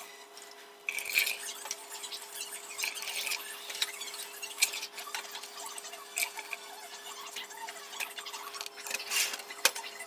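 A plastic ladle scraping and knocking in a pot of thick syrup, and syrup being poured through a funnel into a glass bottle, with irregular clicks and clinks. A steady low hum runs underneath.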